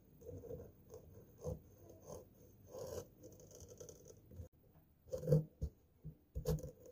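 Kitchen knife sawing through the rind of a raw pumpkin around its stem: irregular crunching and scraping strokes, with a couple of louder knocks in the last two seconds.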